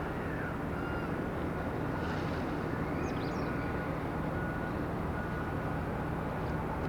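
Steady low engine rumble and hum of the Japan Coast Guard patrol vessel Settsu under way, mixed with wind and water noise; a few faint high chirps about three seconds in.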